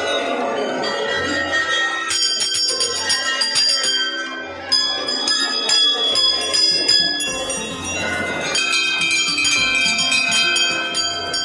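Temple bells ringing continuously, many strikes overlapping at several pitches in a dense jangle.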